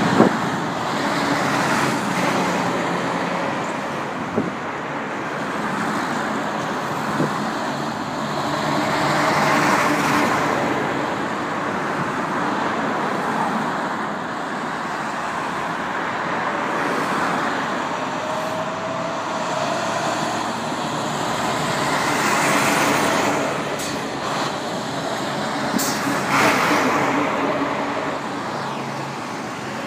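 Road traffic passing close by: civilian cars and six-wheeled military cargo trucks from a convoy drive past one after another. Their engine and tyre noise swells and fades as each vehicle goes by, loudest at about 10 s and again at about 22 s.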